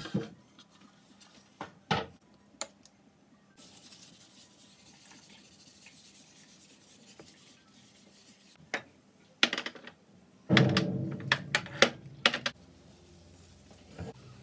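Kitchen countertop being cleaned: a cloth rubbing over the surface, with scattered knocks as a wooden cutting board and other items are picked up and set down. A louder run of knocks and clatter comes near the end.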